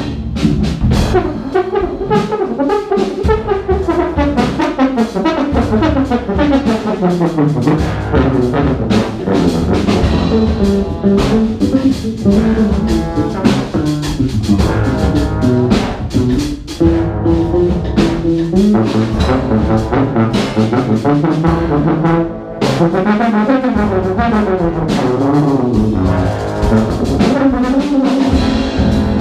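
Large jazz band playing live, led by brass: tubas, trombones and saxophones in several moving lines over drums.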